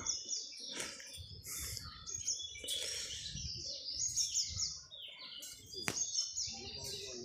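Wild birds chirping and calling: many short high notes, some in quick falling runs, over a faint low rumble. A single sharp click sounds about six seconds in.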